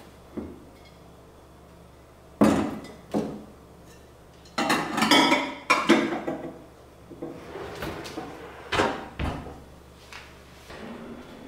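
Stainless steel pots, their glass lids and a glass dish knocking and clinking against each other as they are set into a kitchen drawer. Two sharp knocks come first, then a run of clatter with brief metallic ringing about halfway through, and one more knock later on.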